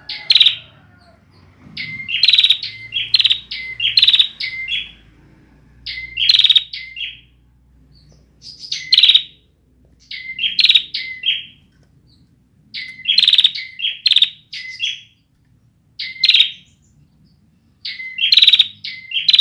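Bar-winged prinia (ciblek) singing: short bursts of quick, sharp chirps that repeat about every one to two seconds. This is the song of a bird that is not yet fully trained, its song still unfinished.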